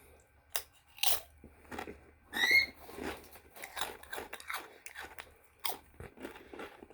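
Close-up crunching and chewing of Doritos Flaming Hot Limón tortilla chips: a string of crisp crunches, the loudest about two and a half seconds in.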